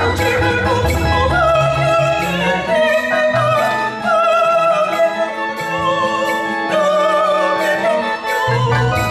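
Choir singing with a lead voice holding sustained notes with vibrato, over an organ accompaniment. The low bass drops out about three seconds in and comes back near the end.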